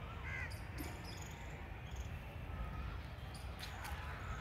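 Park ambience on a handheld phone microphone: a steady low rumble with a few soft knocks, and faint bird calls, crows among the birds nearby.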